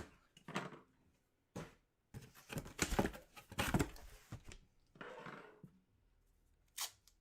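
A string of short scraping, rustling and knocking handling sounds, most of them bunched in the middle, as packaging and items are moved about on a table.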